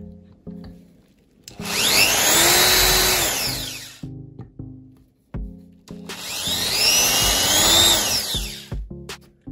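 Power drill boring twice into a veneered chipboard board, each run lasting about two and a half seconds, its motor whine rising as it speeds up and falling as it slows. Faint background music underneath.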